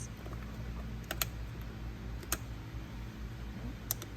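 Fingers pressing and tapping a plastic trim piece onto the dashboard, giving four sharp clicks spread out over a steady low hum.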